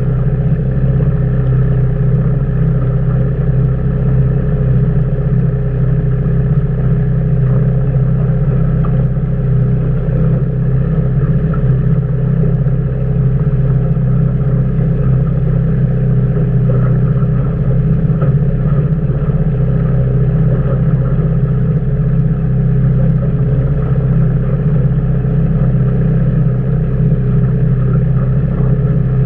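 Boat's outboard motor running steadily, a constant low hum with a steady higher tone above it that stays even throughout.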